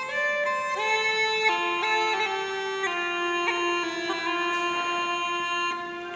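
Uilleann pipes playing a slow melody of long held notes.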